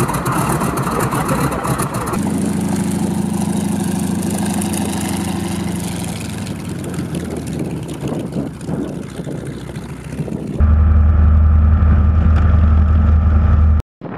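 Model aircraft engines running at steady speed, heard in several clips cut one after another: the pitch and tone jump abruptly about 2 seconds in and again near the end, where the loudest and deepest engine note is.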